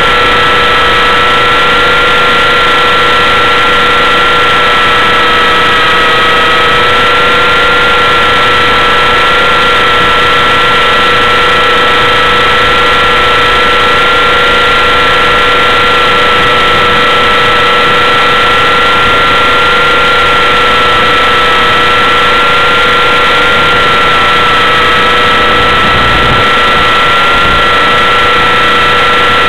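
T-Rex 600 RC helicopter in flight, picked up by a camera mounted on the helicopter itself: a loud, steady mechanical whine with two held pitches that waver slightly as the throttle and rotor load shift.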